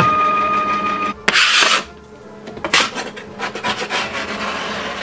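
Hand scraper tool being dragged across a worn MDF CNC wasteboard in several scraping strokes, the longest running through the second half. A steady high-pitched tone sounds for about the first second.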